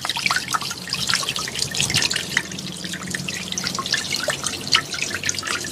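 Water from a small artificial waterfall pouring into a pond, with many quick, irregular splashes and drips over a steady low hum.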